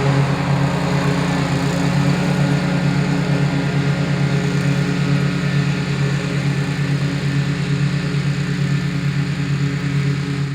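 Gasoline engine of a remote-control slope mower running steadily at a constant speed, with a low, even, rapid pulsing throb.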